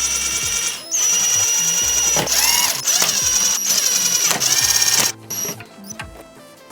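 Electric screwdriver driving the NVR's case screws home in about five short runs of motor whine over the first five seconds, a few of them spinning up in pitch as they start.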